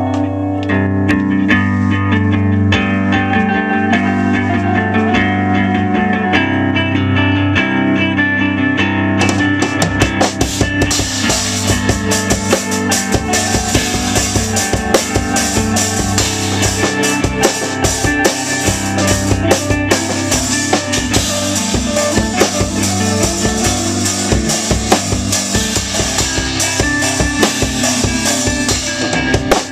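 Electric guitar and drum kit playing live together in a rehearsal room. The guitar plays alone at first, and about ten seconds in the drums come in with bass drum, snare and cymbals.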